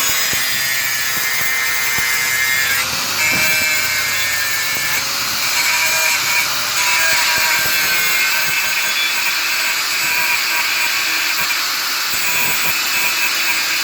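A power tool running continuously: a loud steady noise with several whining tones that shift slightly in pitch about three seconds in.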